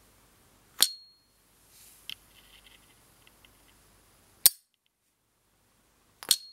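S.T. Dupont Ligne 1 gas lighter from the 1970s: its lid flips open with a sharp click and a bright, briefly ringing ping. About halfway through the lid snaps shut with a plain click, and near the end it flips open again with a second ping.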